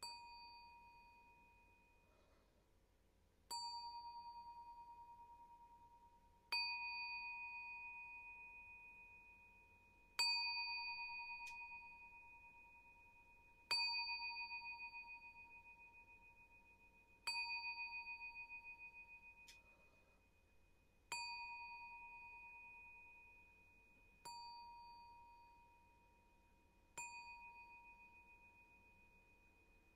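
A bell struck nine times, about every three to four seconds, each strike ringing a high tone that slowly fades before the next. These are memorial tolls from a count of 31 bell strikes, one for each year since the night being mourned.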